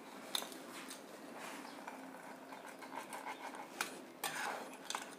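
Pizza-cutter wheel rolling through a baked pizza's crust, giving a faint scratchy crunching with a few sharp clicks as the wheel meets the pan.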